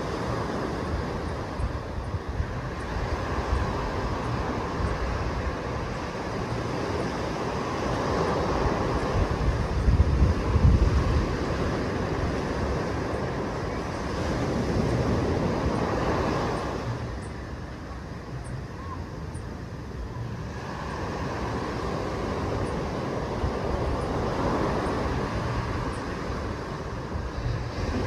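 Small waves breaking and washing up on a sandy beach. The surf swells and eases in slow surges, loudest about ten seconds in and dying down for a few seconds past the middle.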